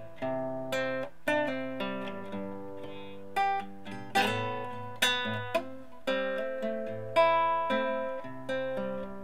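Acoustic guitar playing, picked notes and chords struck about twice a second and left to ring.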